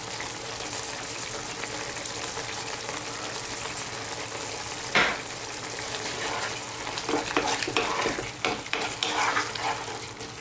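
Thick tomato and onion masala sizzling in a non-stick pan. From about six seconds in it is stirred with a wooden spoon that scrapes and knocks against the pan. There is a single sharp knock about halfway through.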